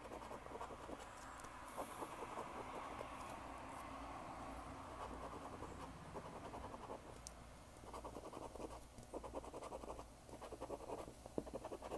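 A coin scraping the coating off a scratch-off lottery ticket: a steady scratching for several seconds, then a series of short, quick strokes.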